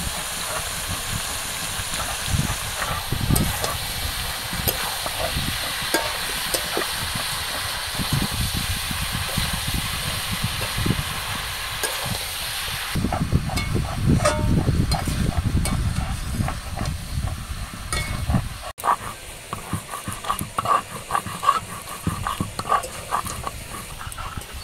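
Jackfruit pieces and mutton liver sizzling in a hot metal kadai while a metal spatula scrapes and stirs them. Near the end it breaks off suddenly and gives way to the rubbing of a stone pestle on a grinding slab.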